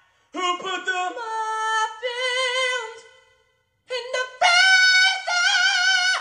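A man singing high, wordless notes a cappella in two phrases, each climbing to a long held note with vibrato, the second phrase higher than the first.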